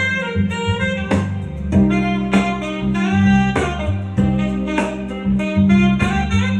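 Smooth jazz music: plucked guitar notes over a steady bass line, with some saxophone.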